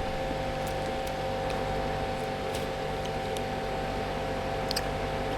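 A steady mechanical hum holding two constant tones, with a few faint clicks.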